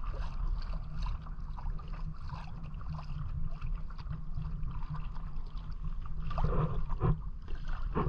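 Water splashing and gurgling around a paddled kayak, with small irregular splashes from the paddle, over a constant low rumble of wind on the microphone.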